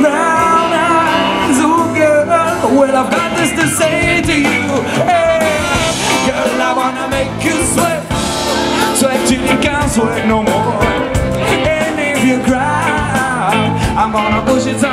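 Live band playing through a PA system: singing over guitars, keyboard and drums.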